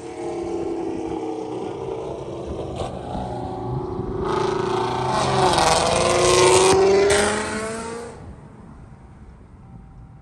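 Supercharged V8 muscle car engine revving, its pitch climbing and falling, loudest about four to seven seconds in before dying away near the end.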